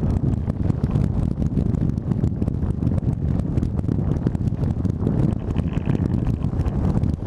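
Wind buffeting the microphone of a camera on a small boat under way, a steady low roar with gusty crackle, over the rumble of the hull running through chop.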